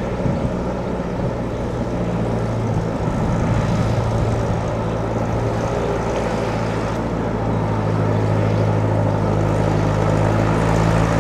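David Brown VIG/1C aircraft-towing tractor's engine running steadily as it tows a Lancaster bomber, getting gradually louder as it comes closer.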